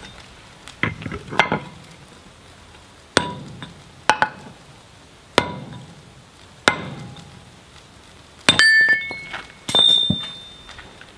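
Hammer blows on a steel drift being driven through the square hardy hole of a striking anvil: about eight heavy, unevenly spaced strikes, each with a short metallic ring. The last two, near the end, ring on longer with a clear bell-like tone.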